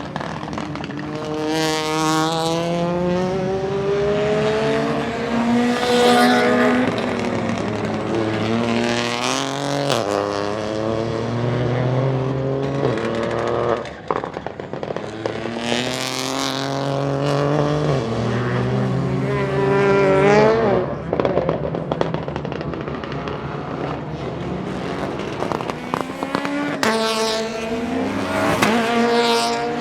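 Peugeot 208 Rally4's 1.2-litre turbocharged three-cylinder engine pulling hard through the gears, its pitch climbing and dropping back at each shift. On lifting off, about halfway through and again about two-thirds of the way in, the exhaust crackles and pops.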